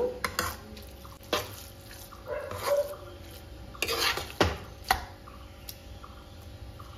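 Steel spoon stirring and tossing noodles in a metal kadai: soft scraping with a few sharp clinks of the spoon against the pan, the loudest a little past four seconds in.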